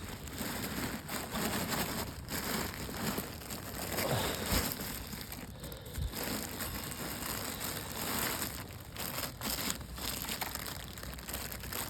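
Irregular rustling and crackling noise, like material being crinkled or handled close to the microphone.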